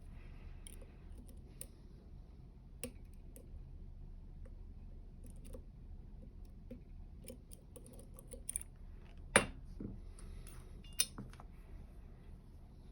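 Dimple lock pick and tension tool working the pins of a U-Shin Showa NX dimple lock: faint scattered metallic clicks and scrapes, with two sharper clicks, one a little after the middle and another about a second and a half later.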